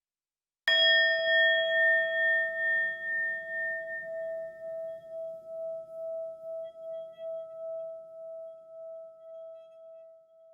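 A bell struck once, about a second in, its clear tone ringing on and slowly dying away with a steady wavering pulse; the higher overtones fade first.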